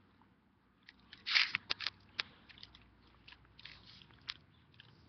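Close handling noise of a camera being shifted and repositioned: a brief rustling scrape about a second in, then scattered small clicks and rustles.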